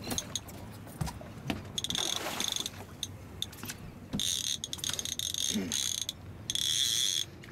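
Conventional saltwater fishing reel being cranked in three spurts, its gears giving a whirring, ratcheting buzz, with small clicks between the spurts, as a striped bass is wound up to the boat.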